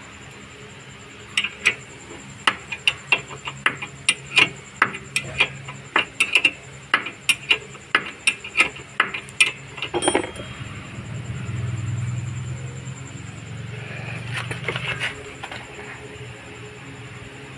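Ratchet wrench clicking as its socket turns a rear brake caliper bolt, a steady series of sharp clicks a few a second. A louder clack about ten seconds in ends the series, and a low hum follows.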